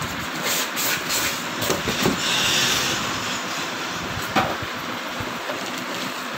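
Plastic wrapping around a kitchen chimney rustling and crinkling, with cardboard packaging being handled, as it is unpacked from its box; a short sharp tap a little over four seconds in.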